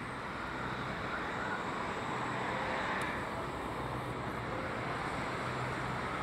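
Boeing 787-8 twin-engine jet airliner accelerating down the runway on its takeoff roll, its turbofans at takeoff power making a steady rushing noise.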